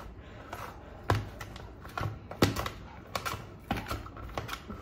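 A series of irregular light clicks and taps, about two or three a second, unevenly spaced.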